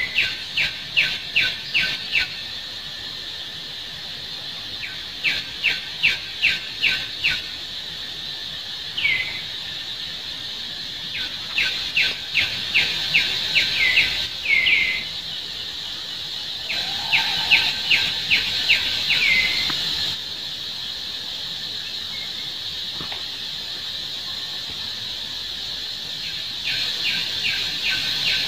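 High-pitched chirping calls in quick series of five to eight, about three a second, several series ending in a short downward-sliding call, repeated every few seconds over a steady high hiss.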